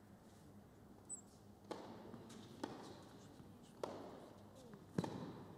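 A tennis serve and rally on an indoor hard court: the ball is struck by rackets and bounces in a run of sharp pops about once a second, the loudest about five seconds in, over the low hum of an indoor arena.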